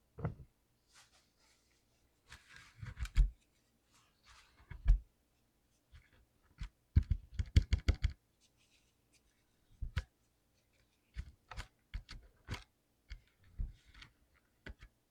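Blue mechanical keyboard switches clicking as they are pressed and handled during lubing: irregular clicks, with a quick run of clicks about seven to eight seconds in. Soft scratching sounds come between the clicks in the first few seconds.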